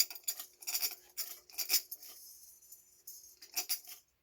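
Ceiling fan's metal pull chain rattling and jingling against the switch housing as it is tugged several times; the light chain is sticking.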